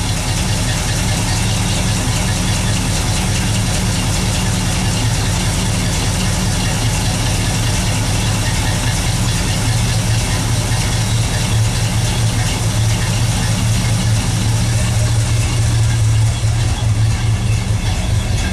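1964 Pontiac GTO's 389 V8 running steadily at idle while still cold, its carburetor without a choke.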